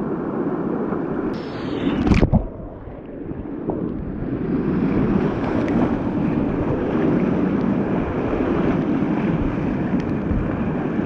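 Whitewater river rapids rushing steadily, with wind buffeting the microphone. A brief knock about two seconds in.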